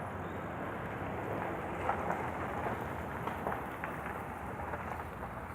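Water gushing and splashing steadily from a leaking municipal water pipe, with a few small ticks in the splashing.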